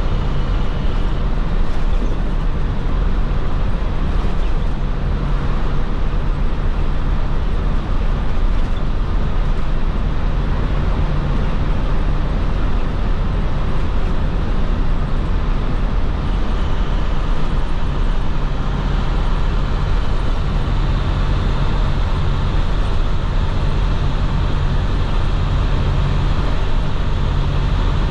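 A 2010 IC FE school bus's MaxxForce DT inline-six diesel engine running at a steady cruise under way, with a continuous low hum over road and tyre noise. The engine note eases a little around the middle and then comes back.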